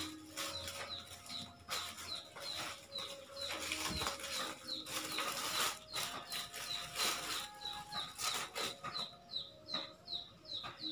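Plastic bag and paper wrapping rustling and crinkling as a T-shirt is pulled out of its packaging. A small bird chirps quickly and regularly in the background, about two to three chirps a second.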